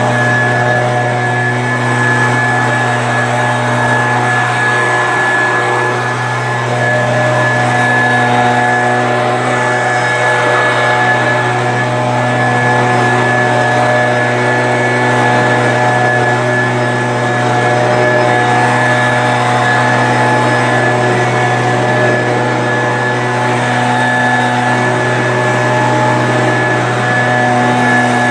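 Stihl BG 86 handheld two-stroke leaf blower running steadily while blowing sawdust, its engine note carrying a steady high whine.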